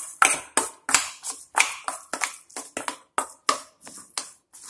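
Metal spoon stirring a thick grated-potato and gram-flour batter in a stainless steel bowl, clicking and scraping against the bowl in quick, uneven strokes, about four a second.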